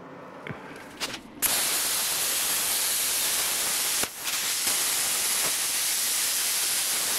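Handheld plasma cutter cutting a circular hole in steel plate: a steady hiss that starts about a second and a half in, breaks off briefly around four seconds, then resumes.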